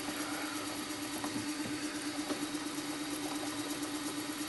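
Milling machine running steadily with an even hum, a 6 mm end mill turning in its chuck.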